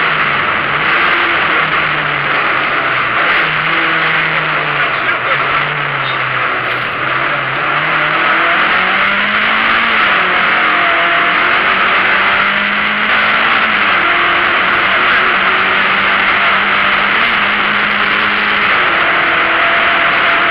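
Opel Ascona A rally car's engine pulling hard at speed, heard from inside the cabin, its note climbing and dropping with the gear changes and steadier through the second half. A loud rush of road and wind noise sits over it.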